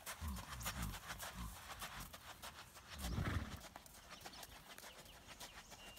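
A horse walking on sand footing: soft hoof steps, with a louder low rumble about three seconds in.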